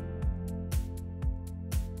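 Background music with a steady beat: a low drum hit about twice a second and a brighter hit once a second over held chords.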